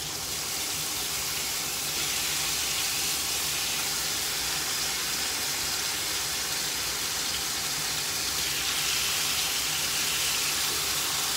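Thin slices of pork sizzling in hot oil in a frying pan as they are laid in one by one. It is a steady, even hiss that gets louder about two seconds in as more meat goes into the pan.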